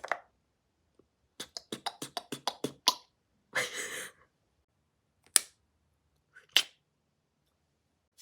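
Mouth-made percussive sound effects: a fast run of about eight sharp pops, then a hissing burst, a single sharp click and a short final pop.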